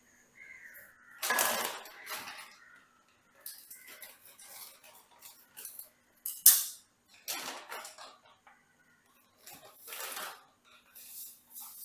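Intermittent kitchen clatter of dishes and utensils being handled, in short irregular bursts, with a sharp clink about six and a half seconds in.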